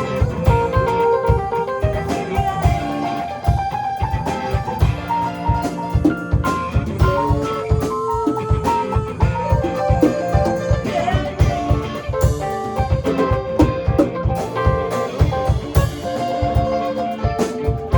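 Instrumental band music: guitar playing melodic lines over a steady drum-kit beat, with no singing.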